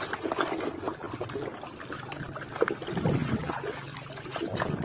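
Muddy water sloshing and trickling in a basin as a toy crocodile is swished and rubbed clean by hand, with irregular small splashes.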